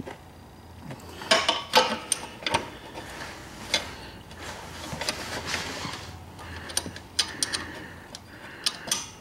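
Irregular metallic clinks and clicks of a wrench working the crankcase drain plug of a 2008 Polaris Sportsman 500 HO as it is snugged down after being threaded in. The loudest strikes, with a short metallic ring, come about one and a half seconds in.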